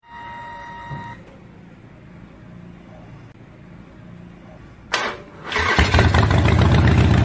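An engine starting: a sudden burst about five seconds in, then the engine running loud and steady. Before it, a short steady tone ends about a second in, followed by a quieter low hum.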